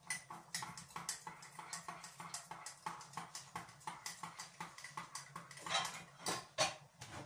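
Vegetables being prepared by hand at a kitchen counter: quick rhythmic scraping strokes, about three a second, with two louder strokes near the end.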